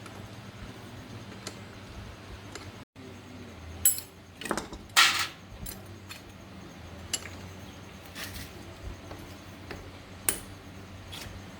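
Small metal parts and hand tools being handled on a workbench: scattered clinks and knocks, the loudest a short rasp about halfway through, over a faint steady hum.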